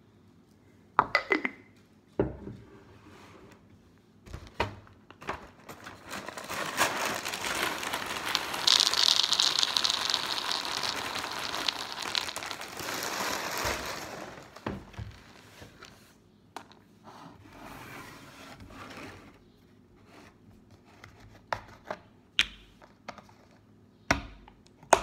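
Plastic cereal bag being crinkled and handled, with a long stretch of loud rustling in the middle and several sharp knocks before and after it.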